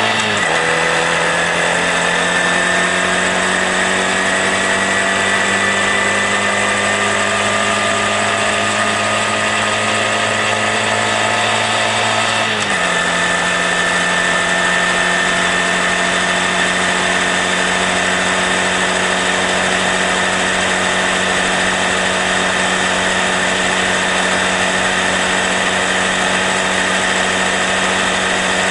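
Honda Grom's small single-cylinder four-stroke engine running while riding, its pitch dropping sharply as it shifts up just after the start and again about halfway through, then creeping slowly upward as it pulls in each gear.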